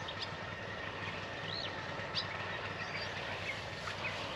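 Small birds chirping in short, scattered high calls over a steady outdoor hiss.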